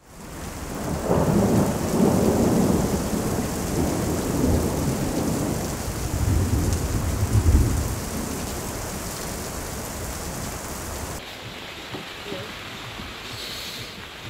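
Rain falling with low thunder rumbling, swelling about two seconds in and again, loudest, around seven seconds in. About eleven seconds in it cuts abruptly to quieter, steady rain.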